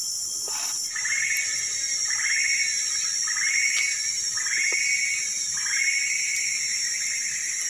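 Steady high-pitched drone of forest insects, with an animal's short pulsing call repeated five times, about once a second.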